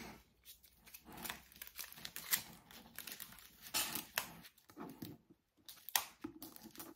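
Clear plastic wrapping on an embossing folder being picked at and torn open by hand: a sparse string of soft crinkles and small tearing rustles, a few sharper ones among them, with short pauses.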